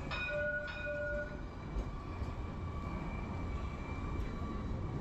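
City street ambience: a steady traffic rumble, with a short high-pitched horn-like tone sounding in the first second and a half.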